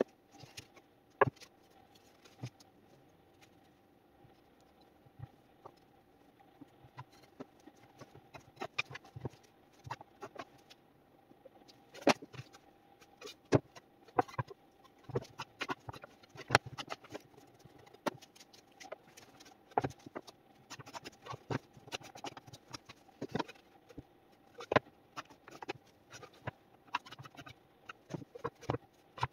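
Wooden boards knocking and clattering as they are lifted and stacked on a workbench: irregular light knocks and taps, sparse at first and much busier from about a third of the way in, over a faint steady hum.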